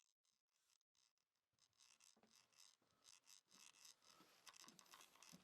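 Near silence with faint rustling and scratching that grows a little from about a second and a half in.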